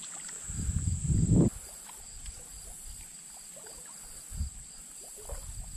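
Low rumbling bumps from movement on a small boat, loudest about a second in and again briefly near the end, with scattered small clicks. A steady high insect drone runs underneath.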